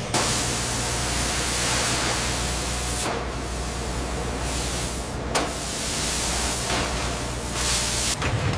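Loud, steady, spray-like hiss over a low machine hum. It starts abruptly, dips briefly twice, and cuts off near the end.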